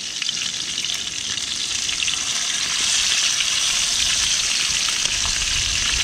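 Skin-on fish fillets frying in hot olive oil in a frying pan: a steady sizzle with small crackles, growing a little louder over the first couple of seconds.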